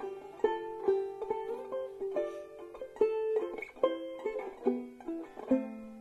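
Banjo music: a tune of quickly plucked notes, each struck sharply and fading fast.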